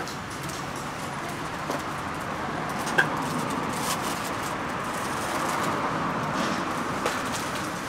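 Street background noise: a steady hum of road traffic, with a few sharp clicks, the loudest about three seconds in.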